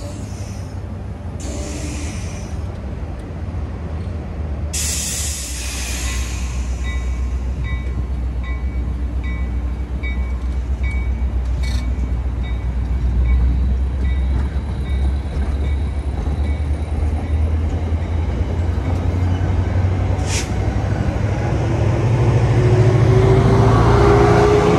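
NJ Transit passenger coaches rolling past on the rails with a steady low rumble, a burst of air hiss about five seconds in and a couple of sharp clanks. Over the last few seconds the diesel locomotive comes by, getting louder, with a rising engine whine.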